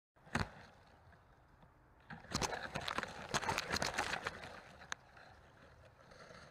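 Leaves and twigs rustling and knocking against a small FPV quadcopter's onboard camera caught in a tree. A sharp knock comes just after the start, then a dense run of knocks and rustling from about two to four seconds in as the branches shake.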